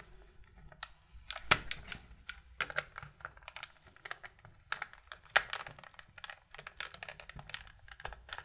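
Irregular small plastic clicks and scrapes as a screwdriver pries at the back case of a Commodore 796M calculator, working the clips loose, with a few sharper single clicks.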